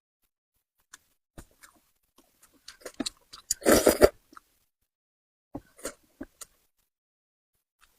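Close-up mouth sounds of someone eating spicy braised fish: scattered wet smacks and chewing clicks, with one louder half-second burst of sucking noise a little before the middle.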